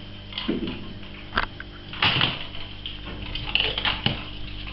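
Ragdoll kitten playing: scattered light taps, knocks and rustles at irregular moments, the loudest about two seconds in.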